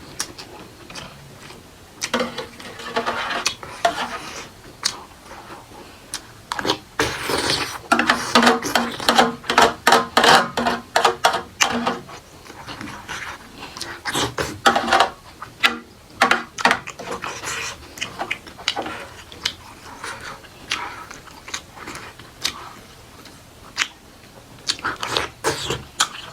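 Close-miked eating: wet chewing and lip smacks on soft food, with occasional light clinks and scrapes of tableware. The chewing comes as a rapid string of smacks, densest from about 7 to 12 seconds in.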